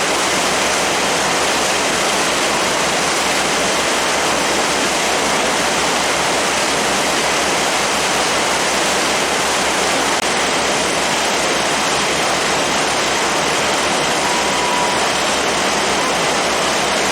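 Steady rushing noise aboard a moving passenger boat: wind across the microphone and water rushing past the hull, with a fast, regular low pulsing underneath.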